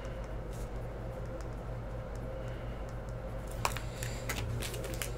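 Steady low electrical hum with faint scattered clicks of hands at work on a tabletop. A few sharper clicks and crinkles come about three and a half seconds in, as foil trading-card packs are handled.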